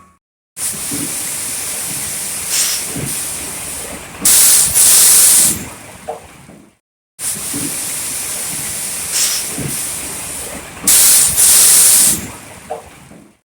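Steady loud hissing rush of a concrete batching plant loading a mixer truck, with a brief, louder hiss blast partway through. The same six-second stretch plays twice, with short gaps of silence around it.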